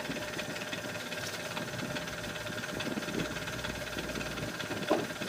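Milling machine running with its spindle turning an edge finder held against the workpiece edge: a steady mechanical hum. A low rumble drops away about four and a half seconds in, followed by a single sharp click.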